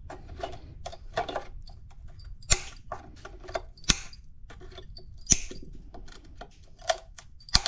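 Diagonal side cutters clipping at a plastic intake manifold: a string of small clicks, with sharp snaps about two and a half, four and five and a half seconds in, and again near the end.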